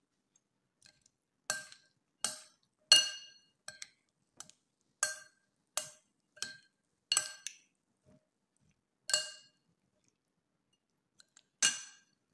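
Metal spoon and fork clinking against a ceramic salad bowl while tossing a salad: about a dozen sharp clinks, each with a brief ring, at a fairly even pace, then a pause and one last clink near the end.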